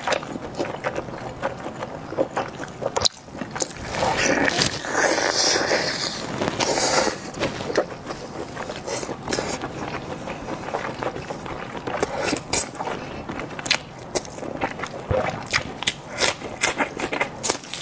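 Close-up eating sounds: wet chewing and lip smacks with many small clicks. Plastic-gloved hands squeeze and pull apart a sauce-soaked layered intestine sausage, making a louder squelching stretch about four to seven seconds in.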